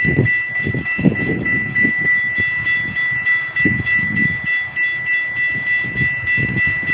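A train passing close by: uneven rumbling pulses of wheel noise, under a steady high-pitched tone.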